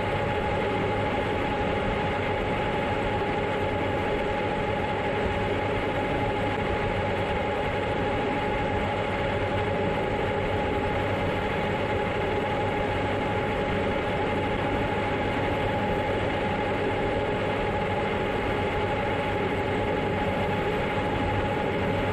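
John Deere X9 1000 combine harvester running steadily while harvesting corn: engine and threshing machinery at a constant pace, with a steady whine over the machine noise.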